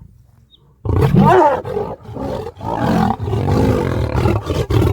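Male lion roaring: after a moment of quiet a loud roar starts about a second in, followed by a series of further roars with short breaks between them.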